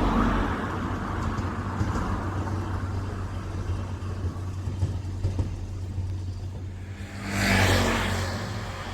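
A passing train's rumble fading out over the first two seconds, then a steady low hum, and a vehicle passing close about seven and a half seconds in.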